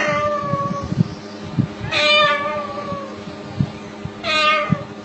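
A white cockatoo mimicking a cat's meow. One meow is tailing off as the sound begins, then two more come about two seconds apart, each sliding down in pitch.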